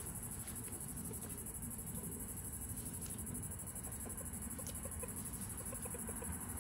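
A few faint taps of a rooster pecking at dirt and dry leaves, over a steady low outdoor rumble and an even high hiss.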